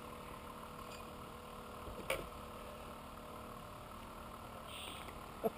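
Kayak paddle being taken up and handled: one sharp knock about two seconds in, over a steady low hum.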